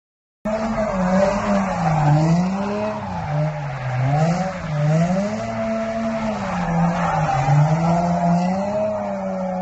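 A drift car's engine revving up and down repeatedly as it is held in a slide, with tyres squealing. The sound cuts in suddenly about half a second in.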